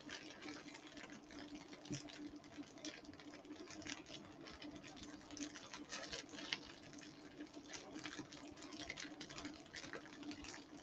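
Tofu slices frying in oil in a frying pan, faintly sizzling with a dense crackle of small spits, and a few clicks as the slices are turned with a fork. A steady low hum runs beneath.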